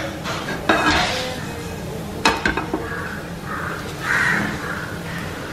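Mustard seeds and black urad dal heating in a little coconut oil in a stainless steel pan, giving a few sharp pops as the seeds begin to splutter. A call repeats several times in the background in the second half.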